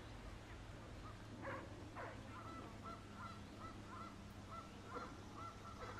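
Faint geese honking: two louder calls about one and a half seconds in, then a quick run of short, even honks, about three a second.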